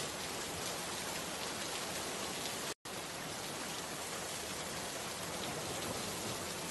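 Steady, even rain-like hiss that cuts out for an instant about three seconds in.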